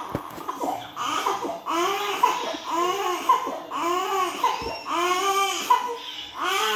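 A baby crying in short, high-pitched wails that rise and fall, about two a second.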